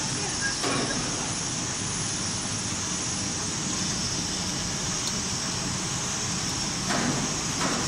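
A 600 mm two-colour flexographic printing press running, a steady mechanical hum and hiss from its motors and rollers feeding plastic film. Two short louder sounds stand out near the end.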